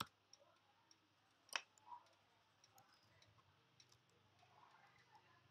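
Near silence broken by a few faint computer keyboard keystrokes, single clicks with the loudest about one and a half seconds in.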